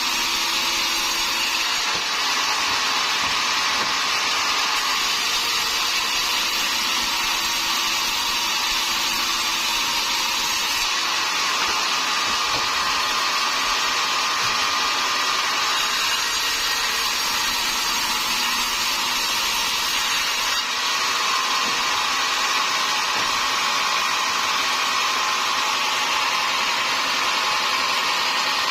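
Sawmill saw running steadily through timber, a continuous loud machine noise whose tone shifts slightly every several seconds.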